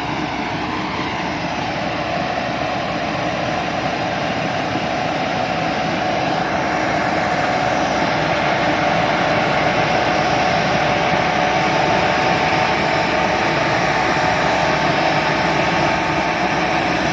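Sakpattana KMT 240 combine harvester running steadily, its engine and machinery giving a constant drone with a steady whine, growing gradually louder over the first half.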